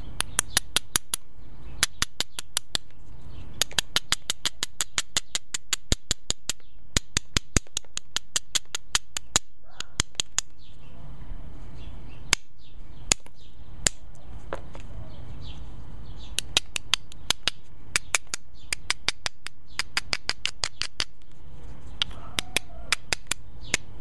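A small round hammerstone tapping along the edge of a stone flake while knapping. It gives sharp clicks in quick runs of several a second, with a sparser spell of single taps midway.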